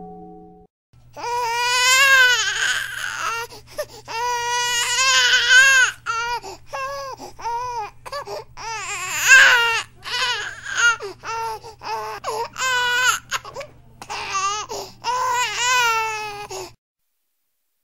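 Newborn baby crying in a string of wails, each a second or two long, with short catches of breath between them, over a faint steady low hum; the crying stops abruptly near the end. At the very start the last of a bell tone dies away.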